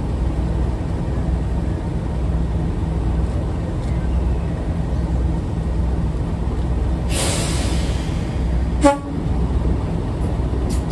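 Class 37 diesel locomotive's English Electric V12 engine running slowly as it draws in, with a throbbing low beat. About seven seconds in there is a hiss of air, and about a second later a short, sharp blast on the locomotive's horn.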